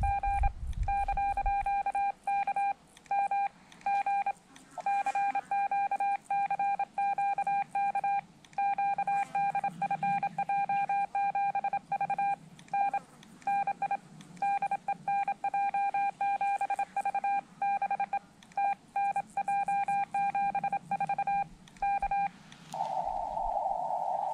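Morse code (CW) sent on a Xiegu X5105 transceiver and heard as its sidetone: a single mid-pitched beep keyed on and off in dots and dashes, likely a call to be picked up by the skimmers. About two seconds before the end the keying stops and the receiver's narrow-filtered hiss returns.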